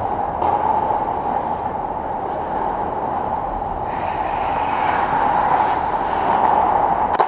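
Ice hockey rink sound: a steady hum with skates scraping on the ice, louder and brighter about four seconds in as players close on the net, and one sharp knock near the end.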